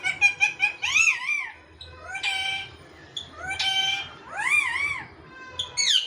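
Caged parrots calling: a quick run of short chirps at the start, then about five drawn-out, wavering calls, roughly one a second.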